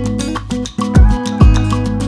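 Background music: acoustic guitar over a steady drum beat with a bass line.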